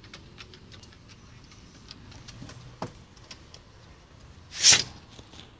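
A dog sneezes once, sharply, about four and a half seconds in. Before it there are faint, irregular light clicks and taps.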